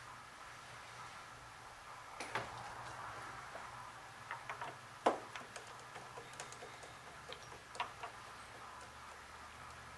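Scattered light clicks and taps of parts being handled and fitted on a metal lathe, as an aluminium wheel blank on its pin and a plastic-faced pressure pad are set in place, over a faint steady hum.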